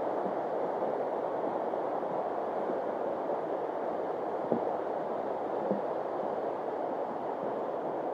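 A steady rushing noise, like flowing water or wind, with a few faint knocks about four and a half and five and a half seconds in.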